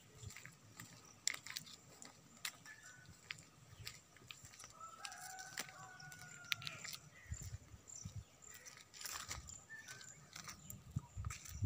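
Footsteps and rustling through dry undergrowth, with scattered sharp snaps and thuds. About five seconds in, a rooster crows once, fainter than the footsteps and lasting about a second and a half.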